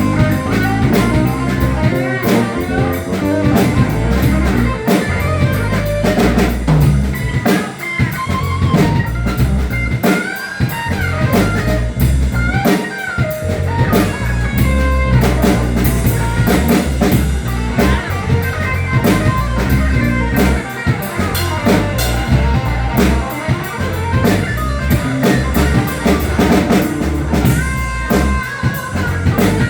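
Live band playing a funk-blues instrumental, with a drum kit keeping a steady beat under guitar lines.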